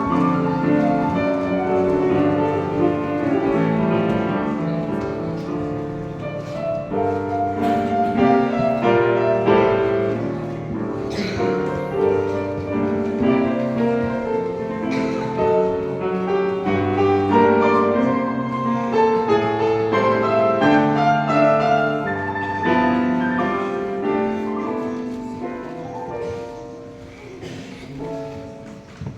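Solo piano playing a dense, flowing passage of many notes at once, growing quieter over the last few seconds.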